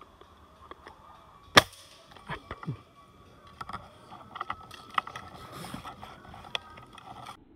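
A single sharp crack of an air rifle being fired, about one and a half seconds in, followed by scattered lighter clicks and knocks from handling the gun.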